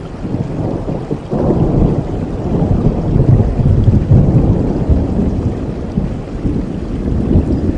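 Steady rain with a low rumble of thunder that rises sharply about a second in and slowly eases off.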